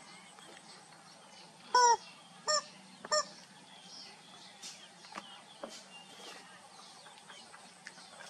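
Squeaky rubber chicken toy being squeezed, giving three honking squeaks: a longer one about two seconds in, then two short ones in quick succession.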